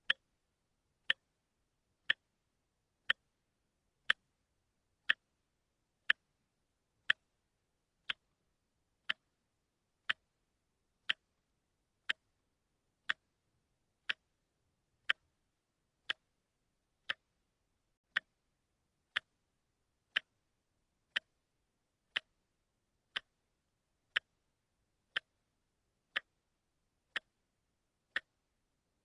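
Watch ticking steadily, one sharp tick a second.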